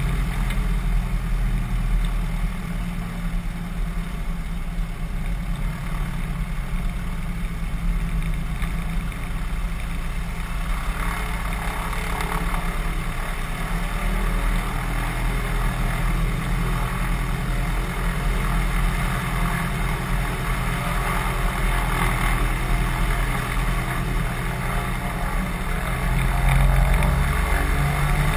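Cessna 182 single-engine propeller plane's piston engine running steadily while the aircraft taxis, with wind and rolling noise. The engine grows louder near the end.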